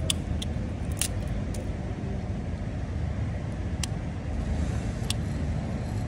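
Sharp metallic clicks, about five spaced irregularly, from a hand tool working at the gear-lever linkage of a new Honda CG 125, over a steady low rumble.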